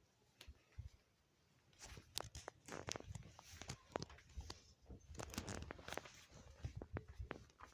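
Irregular handling noise: scattered clicks, light knocks and rustling that start about two seconds in, with no fan motor running.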